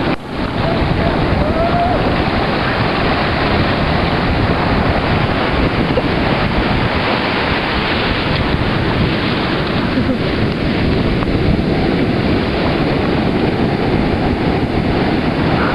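Ocean surf breaking and washing up the beach, with wind buffeting the microphone as a steady rush.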